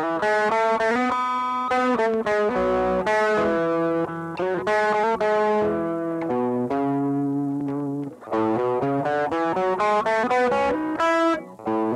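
J-Craft LTX-1 electric guitar in drop B tuning, played through a Dolamo overdrive pedal, recorded direct with no amp or cabinet simulation: an overdriven riff of single notes and chords. The playing breaks off briefly about eight seconds in and again near the end.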